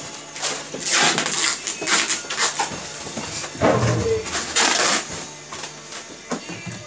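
Styrofoam boxes and plastic packaging being handled, rustling and scraping in short irregular bursts, with a brief voice about four seconds in.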